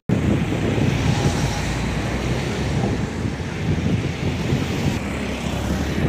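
Steady wind rumble on the microphone mixed with the drone of road traffic passing along a seaside road.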